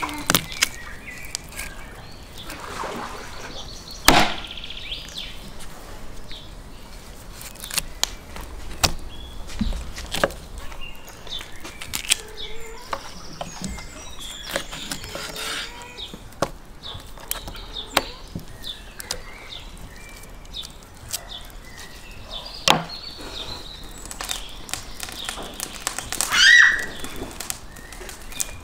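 A kitchen knife cutting up a raw rabbit on a wooden cutting board: irregular knocks and taps of the blade against the board as it cuts through the carcass, a few of them sharper and louder.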